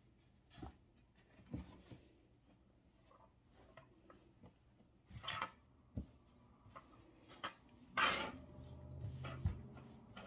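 Cloth rustling and small knocks and clicks as fabric is lifted and moved about on a sewing-machine table, with the loudest rustle about eight seconds in.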